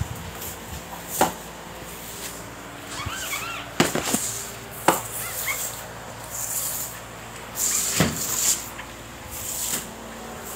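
Rubber floor squeegee pushed through floodwater across a tiled floor: wet swishing strokes with several sharp knocks as it strikes the floor. A few short high squeaks come about three seconds in.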